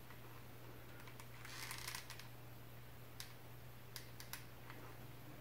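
Faint handling of a hot glue gun as glue is laid onto a wooden chopstick wand: a short soft rustle, then a few small scattered clicks, over a low steady hum.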